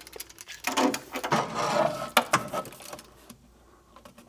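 A steel tape measure is pulled out and handled, giving a run of clicks and rattling that dies away about three seconds in.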